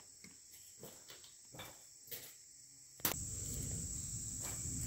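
Steady high-pitched insect chorus, like crickets, faint at first and becoming louder from about three seconds in, over a low rumble.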